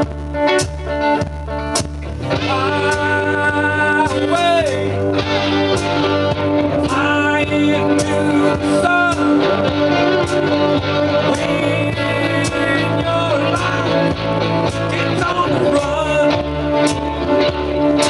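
Acoustic guitar being strummed in a blues-rock song; from about two seconds in, a wavering, sliding melody line plays over the chords.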